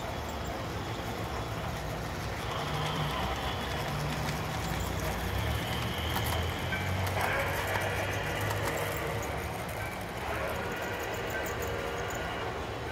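Model steam locomotive, a New York Central J1e Hudson, running past at the head of a passenger train: a steady rolling rumble from the train on the layout track, with scattered clicks about halfway through.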